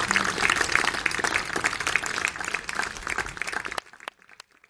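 Audience applauding, the clapping dying away almost four seconds in with a few last scattered claps.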